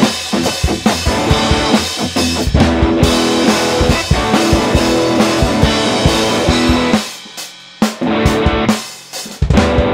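Two-piece garage rock band playing live: an overdriven electric guitar over a drum kit beating a steady rock rhythm. Near the end the band stops short twice, with a single hit in between, before coming back in.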